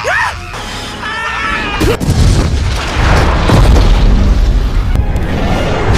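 A film explosion sound effect over score music. A deep, rumbling blast comes in about two seconds in and keeps going loudly.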